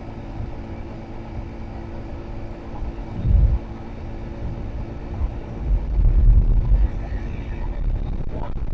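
Road traffic: a steady low engine hum and rumble from vehicles, with two heavier low surges as something passes close, a short one about three seconds in and a longer one from about six to seven seconds.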